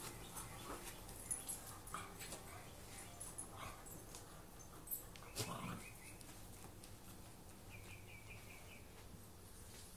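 Dogs playing and wrestling: soft whimpering and a grunt about five seconds in, over light scuffling, with a quick run of short high-pitched whines near eight seconds.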